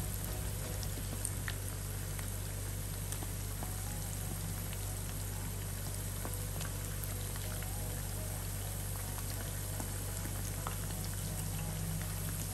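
Chicken wing pieces deep-frying in a pan of hot oil with freshly added pandan leaves and smashed garlic: a steady bubbling sizzle with scattered small pops and crackles.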